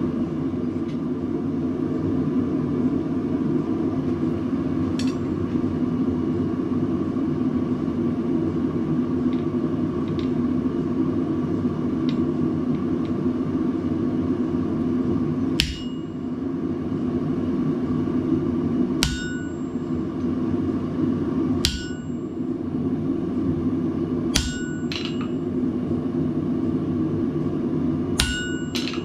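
Steady drone of a blacksmith's forge running, with a hand hammer striking a handled tool held on red-hot steel on the anvil about seven times in the second half, some blows in quick pairs, each ringing briefly.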